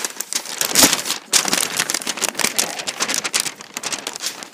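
A sheet of paper rustling and crackling as it is handled and waved right against the microphone, with a loud crinkle about a second in.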